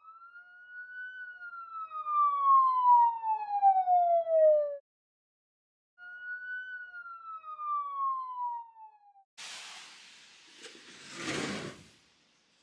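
A whistle-like tone glides slowly down in pitch, twice, with a short pause between. Near the end come a couple of seconds of rushing noise.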